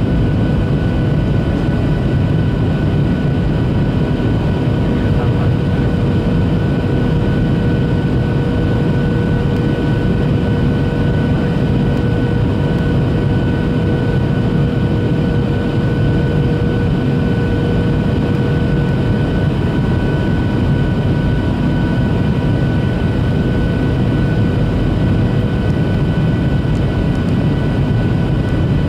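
Steady cabin noise of a Boeing 737-800 descending on approach, heard from a seat over the wing. There is a low rush of airflow and the hum of its CFM56-7B turbofan engines, carrying several steady whining tones. One of the lower tones fades out about two-thirds of the way through.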